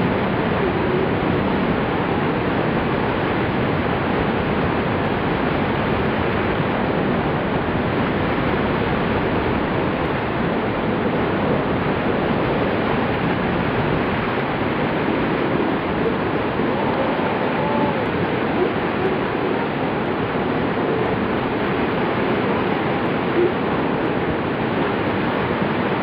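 Waterfall water rushing over a rock slab in a shallow cascade, a steady, even rush with no breaks.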